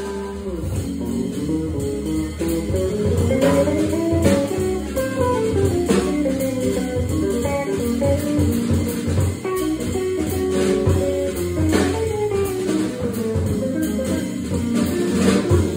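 Live jazz organ trio playing: electric guitar runs of quick single notes over organ bass and drums, with cymbal and drum strokes throughout.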